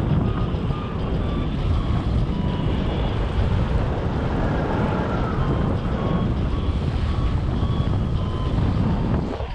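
Wind rushing over the microphone in paraglider flight, with a flight variometer giving short repeated beeps at changing pitch, the vario's signal that the glider is climbing.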